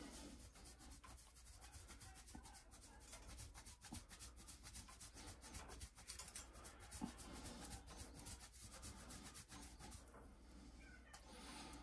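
Faint, steady rasping of a block of Parmesan cheese being grated by hand on a handheld grater, in quick repeated strokes.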